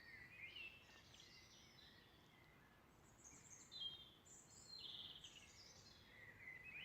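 Faint birdsong: birds singing short chirping phrases and quick trills, one after another, over a quiet background hiss.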